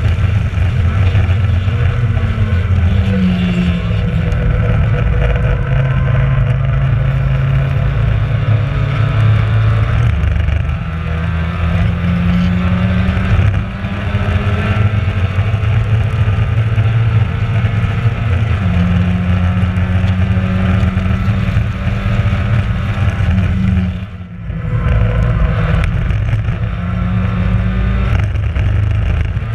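Mazda MX-5 race car's four-cylinder engine running hard on track, heard from on board, its pitch stepping up and down with throttle and gear changes. About three-quarters of the way through it dips briefly as the throttle is lifted, then picks up again.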